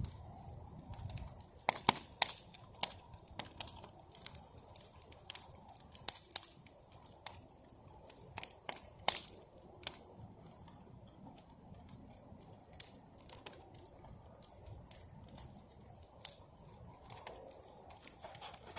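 Campfire of scrap wood from an old camper crackling, with irregular sharp pops a few times a second.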